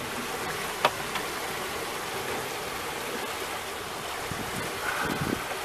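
Steady rushing of water along the hulls of a solar electric catamaran moving under way. A single sharp click comes about a second in, and a brief soft knock comes near the end.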